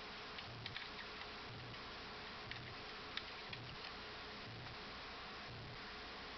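Faint hiccups, soft low pulses about once a second, over a steady hiss, with a few light clicks between them.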